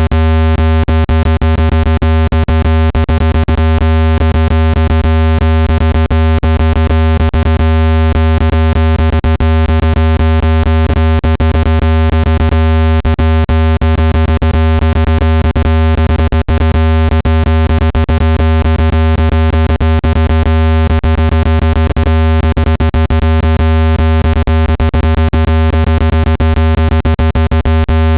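Loud, steady, low-pitched synthetic buzzing tone, rich in overtones and unchanging, of the kind played at full volume to shake trapped water out of a phone speaker. Frequent small clicks run through it.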